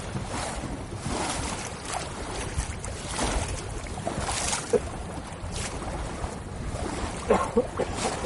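Water lapping with light wind noise on the microphone, and a few faint short clicks and brief blips over it.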